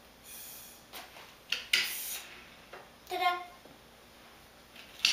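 Breath blown through a drinking straw into a small balloon fixed to a toy car: a short hiss about half a second in, then a couple of sharp knocks and a louder half-second hiss around two seconds in.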